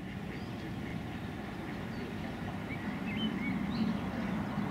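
Lakeside outdoor ambience: a steady low rumble with a few short bird chirps over it from about halfway through.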